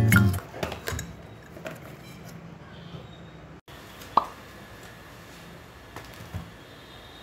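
Acoustic guitar background music dies away in the first second, leaving quiet room tone. About four seconds in, a cardboard delivery parcel is set down on a woven desk mat with one short knock, followed by two soft handling bumps.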